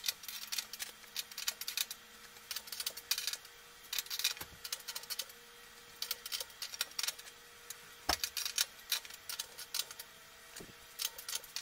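A hand tool clicking in quick, irregular clusters while the levelling feet of a welded metal table are adjusted to bring it level.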